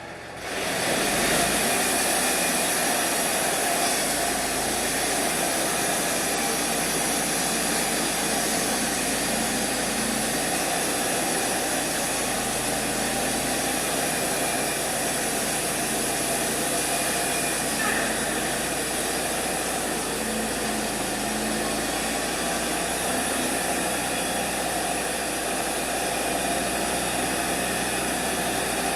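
Wood-Mizer LT35 portable band sawmill throttling up from idle about half a second in, then running steadily at full speed as its band blade saws through a yellow pine log.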